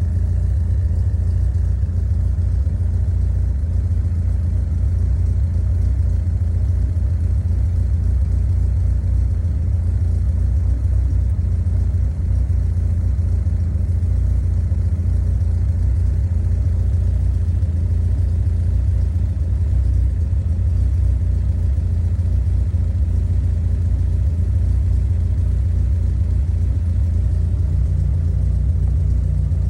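Honda Civic's B-series four-cylinder engine idling steadily, a loud, even, low running sound.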